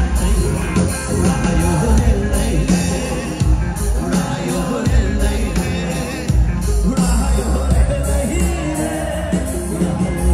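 Live band music played loud through a PA, with a male lead singer singing over heavy bass.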